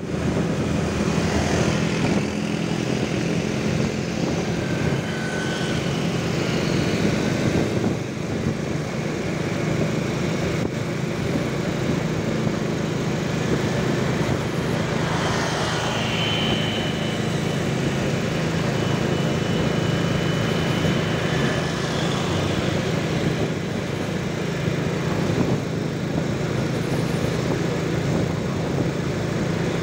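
Steady engine drone with road and wind noise, heard on board a vehicle moving along a city street, with other motorcycles and cars in the traffic around it.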